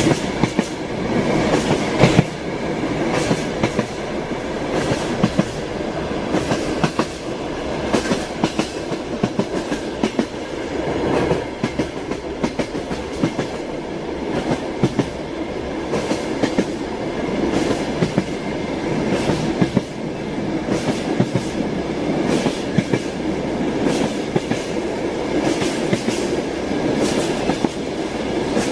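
A train running on rails: a steady noise of wheels on track with frequent, irregular clicks and clacks throughout.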